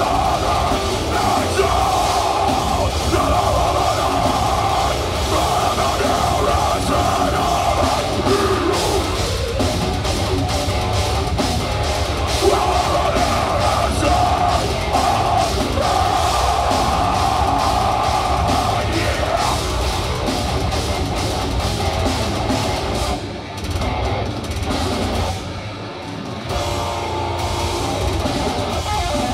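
Deathcore band playing live: heavily distorted guitars and bass over fast, dense drumming. The music breaks off briefly twice late on.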